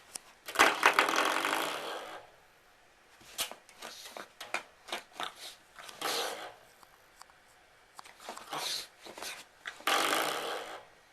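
A pug tussling with a door stopper: several short raspy bursts of snorting and growling, with scattered clicks and knocks in between.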